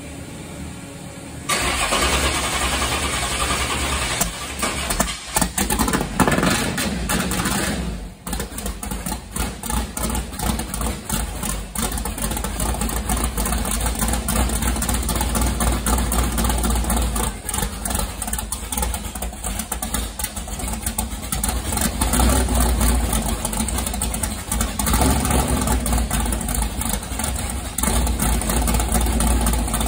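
Nitrous big-block V8 with open headers fires about a second and a half in, on its first start after a new Magnafuel fuel pump was fitted. It runs at a loud, uneven idle, dips sharply for a moment about eight seconds in, and surges several times under throttle blips.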